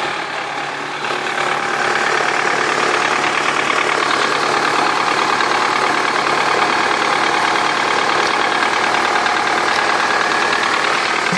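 Toyota Camry's newly installed replacement engine running on one of its first start-ups, with a fast, even mechanical clatter. It gets louder over the first two seconds, then runs steadily.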